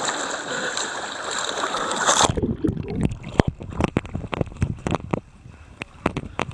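Muddy water splashing and rushing against a body-worn camera as a runner wades through a water obstacle. About two seconds in, the hiss cuts off suddenly, leaving a string of close knocks and splashes.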